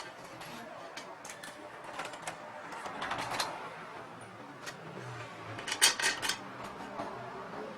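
Scattered clicks and taps of small hardware and tools being handled during heatbed fitting, with a brief rustle about three seconds in and a quick run of four or five sharp clicks about six seconds in.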